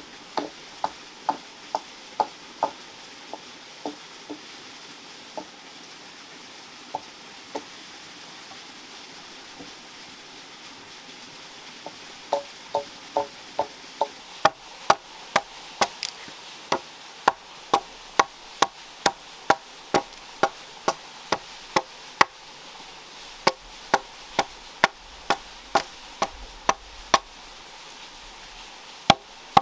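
A series of sharp strikes: a quick flurry at first, a few scattered blows, then from about twelve seconds in a steady run of about two a second.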